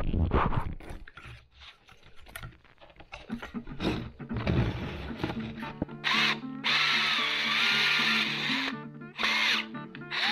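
Wide wood chisel scraping and paring thin slivers of pine from a table-sawn rabbet, in short irregular strokes. About six seconds in, background music takes over.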